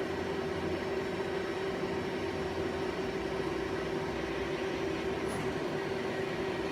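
Okuma Heritage ES-L8II CNC lathe running through a program: a steady, even hum with one constant tone, nice and quiet and smooth.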